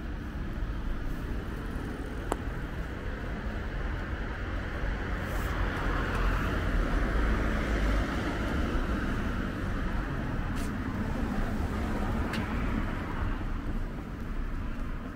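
City street traffic: a steady low rumble of cars, with a passing vehicle swelling loudest about six to nine seconds in and then easing off.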